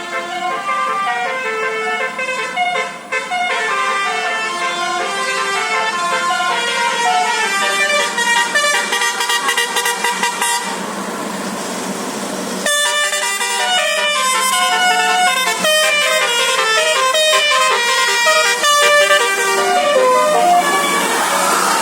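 Basuri telolet horn on a bus playing a fast melody of distinct, quickly changing notes, with a short break about eleven seconds in before the tune resumes.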